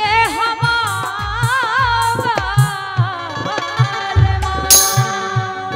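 A woman singing a long, wavering, ornamented Bundeli folk (Rai) line, with harmonium holding notes beneath and a hand drum keeping a steady beat. About three quarters of the way through comes a short, bright metallic crash.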